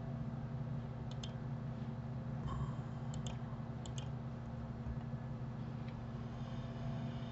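Computer mouse button clicks: three quick double-clicks about one, three and four seconds in, over a steady low hum.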